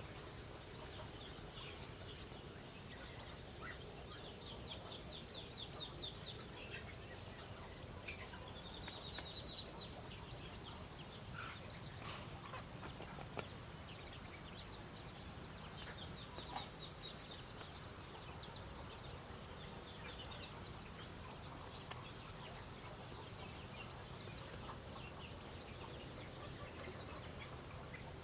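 Birds calling in rapid high trills, several times in bursts of a second or more, over a faint steady outdoor hum.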